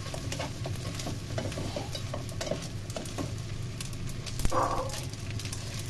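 Rice vermicelli and vegetables sizzling in a nonstick wok as they are stirred and tossed with a plastic spatula, with scattered clicks and scrapes against the pan over a steady low hum. One brief louder sound comes about two-thirds of the way through.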